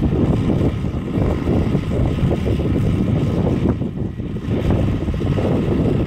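Fordson tractor engine running steadily while the tractor stands with its plough, mixed with wind buffeting the microphone.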